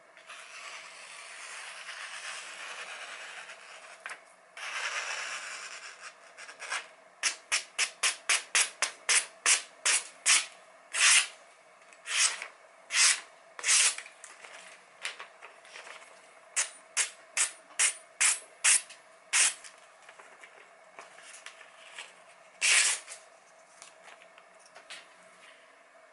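A sharpened kitchen knife slicing through hand-held sheets of paper and newspaper as a test of its edge. There are two long continuous slicing strokes, then a run of short, crisp cuts, about two a second at first and then more spaced out, with one last cut near the end.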